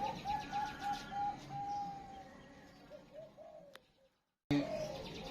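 Zebra dove (perkutut) cooing: a quick run of short rising-and-falling notes, one longer held note, then a few more short notes. The sound cuts to silence for about half a second near four seconds in, then returns.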